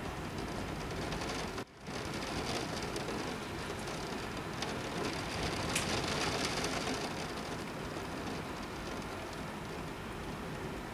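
Heavy rain pouring steadily during a thunderstorm, with a split-second dropout in the sound a little under two seconds in.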